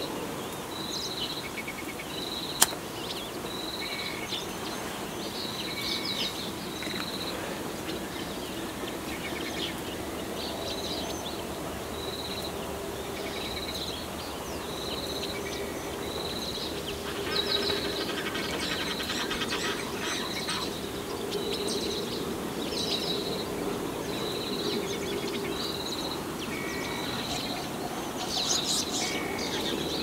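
Birds calling in a morning chorus: one high note repeats about once a second, while other birds chirp and trill, with a long rattling trill just past the middle. A single sharp click comes about two and a half seconds in, and a steady low background noise runs underneath.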